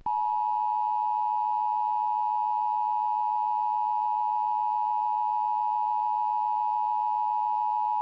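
Emergency Alert System attention signal announcing a tornado warning: a steady electronic tone near 1 kHz held for about eight seconds, then cut off.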